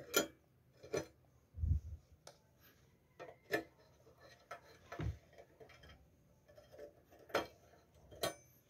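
Scattered sharp metallic clicks and taps, about ten spread irregularly over several seconds, with a couple of duller knocks: hands handling the galvanized steel protection strip and its screws inside an opened LiFePO4 battery case.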